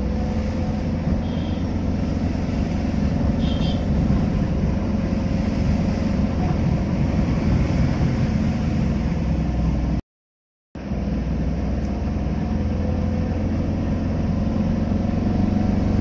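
Steady engine drone and road noise from inside the cab of a small delivery vehicle driving along an open road, with a faint steady tone above the drone. The sound cuts out completely for under a second about ten seconds in.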